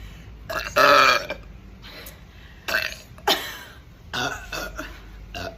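A woman's loud, drawn-out burp about a second in, brought up by a fizzy drink, followed by several shorter vocal sounds.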